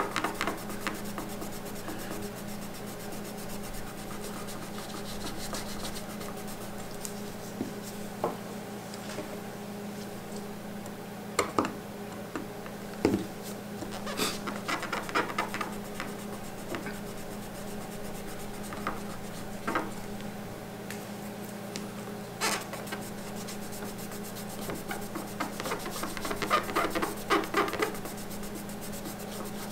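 A cotton swab scrubbing the abraded aluminium surface with neutralizer, the neutralizing step of surface preparation before bonding a strain gauge. It is a soft, uneven rubbing with a few sharp ticks and a run of scratchy strokes near the end, over a steady low hum.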